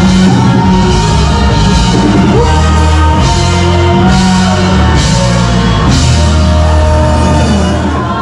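Amplified rock band playing live: loud, with heavy bass and drums under gliding pitched lines from guitar or voice.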